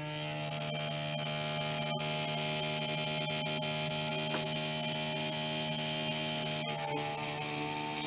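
RS-550 brushed DC motor of a home-made PCB drilling machine running at steady speed with an even, high hum. Its tone dips and shifts slightly about two-thirds of the way through.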